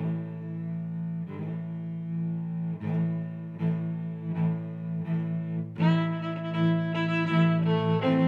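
Background music: slow, sustained notes changing about once a second, growing fuller and louder about six seconds in.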